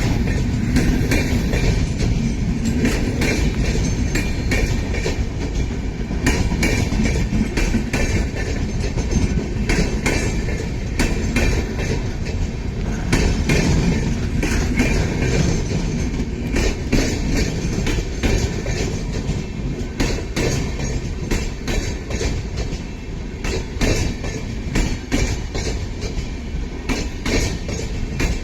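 Express train running on the track: a steady loud rumble with frequent clicking of the wheels over rail joints.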